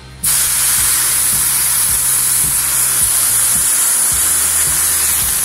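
Pressurised shielding gas for a MIG welder hissing out of the cylinder's regulator fitting once the valve is opened. It starts suddenly and runs loud and steady. The gas is leaking from a fitting that isn't properly attached.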